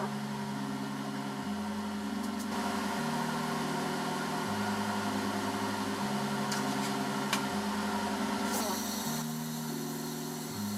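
Background music: sustained low synth chords changing every second and a half or so.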